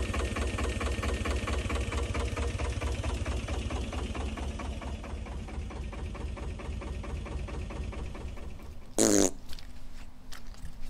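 Twin-cylinder Lister diesel engine of a narrowboat running steadily with an even beat, freshly serviced and running without an airlock. It fades out about eight seconds in, followed by a short loud burst of noise.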